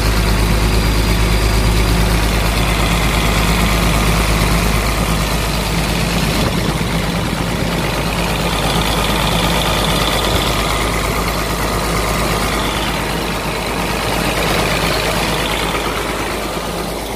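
Komatsu PC200-8 excavator's six-cylinder common-rail diesel engine (SAA6D107E-1) running steadily. It starts and runs after a new common rail was fitted, the cure for a long-cranking no-start.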